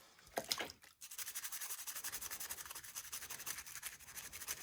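Toothbrush scrubbing plastic model-kit parts in a rapid back-and-forth rhythm, brushing softened, degreaser-loosened paint off the styrene. It pauses briefly in the first second, then resumes.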